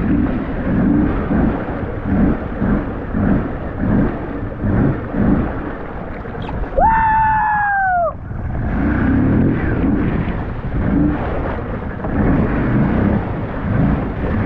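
Loud, uneven rumble and gusting wind noise, of the kind heard riding an ATV through a storm. About seven seconds in, a single falling tone cuts through for about a second.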